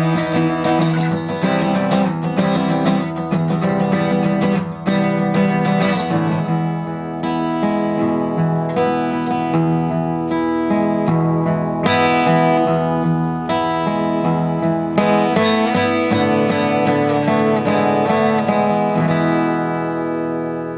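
Acoustic guitar music, strummed and plucked, fading out near the end.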